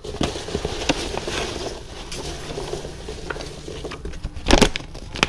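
Hands rummaging through foam packing peanuts in a cardboard box, a continuous rustling with many small clicks, then a paper instruction sheet being handled, with one louder rustle about four and a half seconds in.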